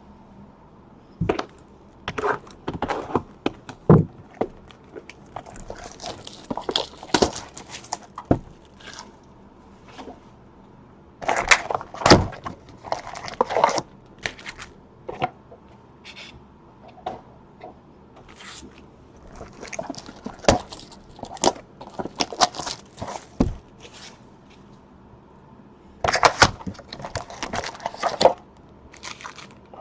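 Trading card packaging being handled: foil packs crinkling and tearing and card boxes knocking on a table, in short irregular bursts.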